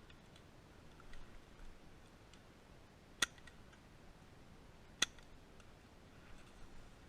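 Two sharp clicks, nearly two seconds apart, with a few faint ticks around them over a quiet background.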